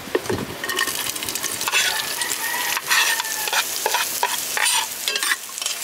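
Sliced red onions sizzling in hot cooking oil in a metal pot, just tipped in, with repeated scrapes and knocks against the pot as they are stirred.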